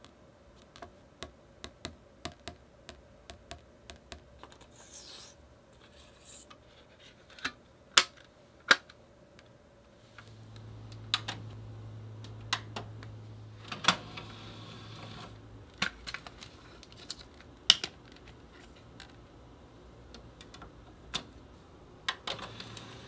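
Sharp plastic clicks and taps from handling a CD jewel case and disc, with two loud snaps about eight seconds in. Then a Sony DVD player gives a low steady hum for about six seconds as its button is pressed, and more clicks follow as the disc is set on its open tray near the end.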